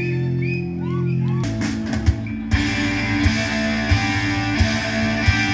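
Rock music with electric guitar: held, sustained tones that give way about a second and a half in to the full band, with drum hits coming at a steady beat.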